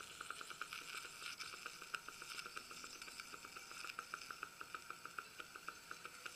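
Dental saliva ejector in the patient's mouth sucking saliva and air, a faint bubbling gurgle with rapid, fairly even clicks.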